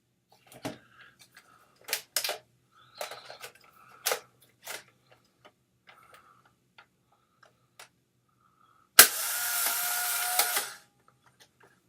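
Polaroid One Step instant camera being handled, with a series of plastic clicks, then the shutter firing with a sharp click and the camera's motor whirring steadily for about a second and a half before stopping.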